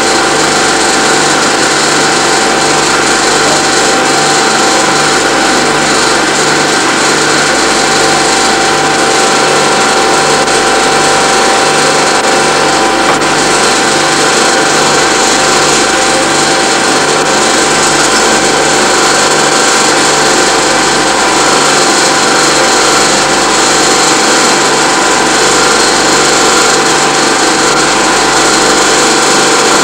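Film projector running: a steady mechanical whir with held tones and a low, regular pulse, the sound of the projector picked up while the silent home movie is re-filmed onto video.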